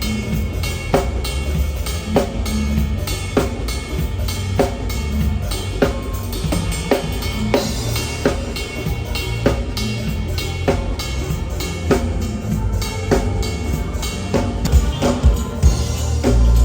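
Live band playing a steady groove: a drum kit with bass drum and snare, with a strong hit about every second and a bit, over a heavy bass line.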